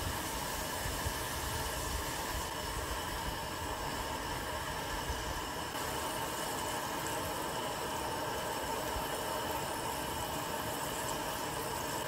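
Whole battered webfoot octopus deep-frying in a pot of hot cooking oil: a steady, even sizzling hiss with a low hum beneath.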